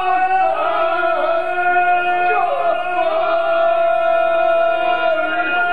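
Three men singing ganga, the unaccompanied Herzegovinian folk song style, in long held notes with short slides between them.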